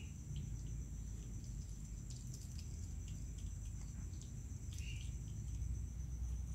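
Crickets trilling steadily, with soft clicks scattered through from a mongoose chewing a piece of fried tofu, over a low steady rumble.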